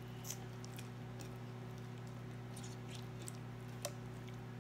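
Slime being squished and worked in the hands, giving faint, scattered sticky clicks and pops over a steady low hum.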